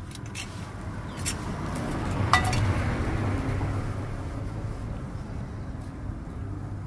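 A motor vehicle passing by: a low rumble that swells to a peak about two and a half seconds in, then slowly fades. A short sharp click about two seconds in.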